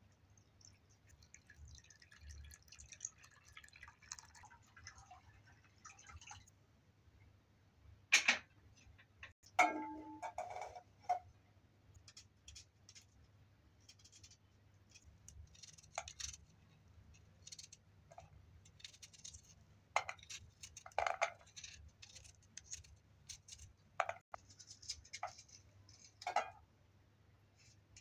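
Water poured from a small kettle into a metal pot of split peas, then a sharp click and a metal pot clanking and ringing briefly as it is set down. After that come scattered small clicks and scrapes of a knife peeling and cutting onions.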